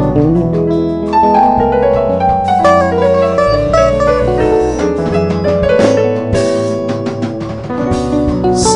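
Music led by plucked string notes over a bass line, with two short hissing hits, one about six seconds in and one near the end.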